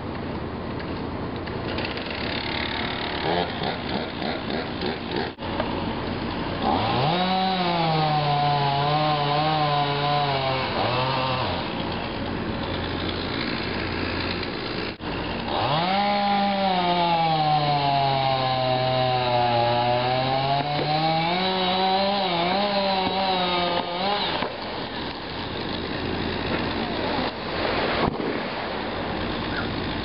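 Gas chainsaw felling a tree, running at full throttle through two long cuts into the trunk with its pitch sagging as the chain bogs in the wood and then picking back up, idling lower between them.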